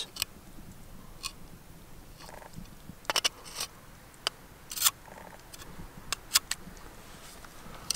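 Knife blade scraping and ticking against a scallop shell while shucking, cutting the adductor muscle free. It comes as scattered short, sharp scrapes and clicks, the clearest grouped in the middle of the stretch.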